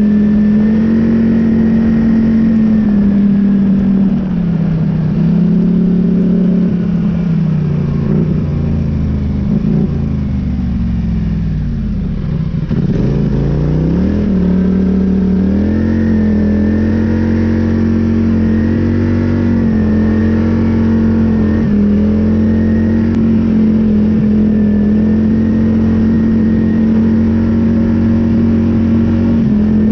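Polaris Scrambler 850 ATV's twin-cylinder engine running steadily as it is ridden through deep fresh snow. Its speed dips briefly a few seconds in, falls away sharply about twelve seconds in, then climbs back and holds steady.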